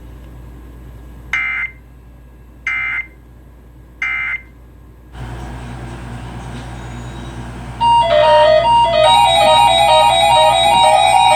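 Three short, evenly spaced bursts of EAS SAME digital data tones, the end-of-message signal that closes an emergency alert. A low hum comes in about five seconds in, and music with plucked notes starts about eight seconds in and becomes the loudest sound.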